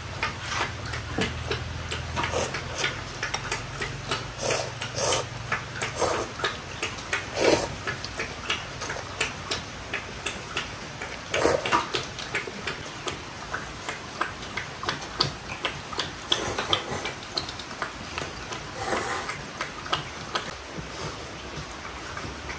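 Eating sounds: irregular clicks and taps of chopsticks against a ceramic noodle bowl, a few a second, with slurping of noodles.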